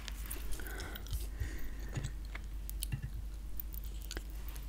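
Gum being chewed close to the microphone: irregular wet mouth clicks and smacks.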